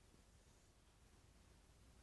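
Near silence: room tone in the pause between a sleeping dog's snores.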